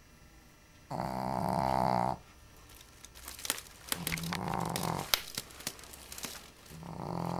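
Shih Tzu snoring in its sleep: three loud snores about three seconds apart, the first the loudest and longest. Between them come a run of sharp clicks.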